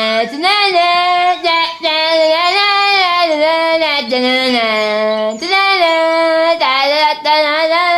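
A high solo voice singing a slow melody in long held notes with vibrato, pausing briefly between phrases.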